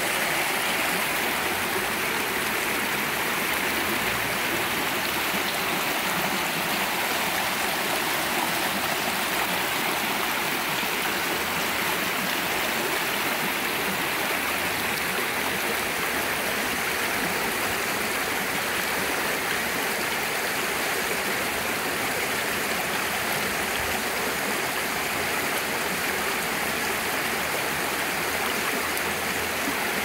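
Shallow, rocky creek flowing over stones and small riffles: a steady, even rush of water.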